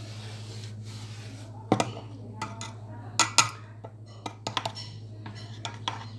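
Metal parts and tools clinking and knocking as a washing machine is taken apart, with several sharp clanks, two close together near the middle, over a steady low electrical hum.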